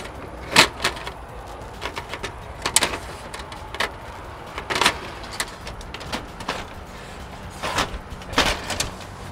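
Romex electrical cable being pulled by hand through a hole in vinyl soffit, with irregular short scrapes and clicks as the cable drags and the soffit panels knock.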